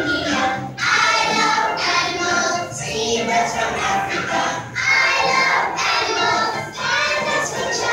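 A song with a group of children singing to music.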